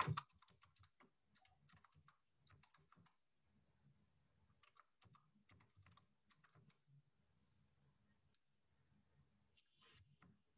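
Faint computer keyboard typing: irregular single key clicks with short pauses between runs.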